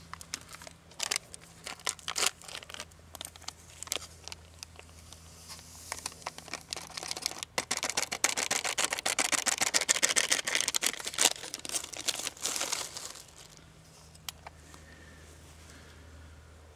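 Crinkling and tearing of a paper-foil drink sachet being handled and opened, with scattered clicks and a dense run of crackling through the middle. A faint low hum runs underneath.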